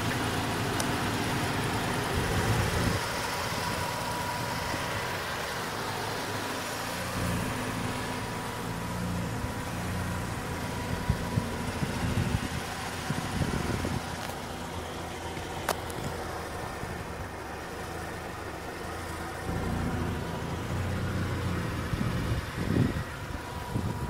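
Mazda RX-8's two-rotor Renesis rotary engine idling steadily, with a faint steady whine above it.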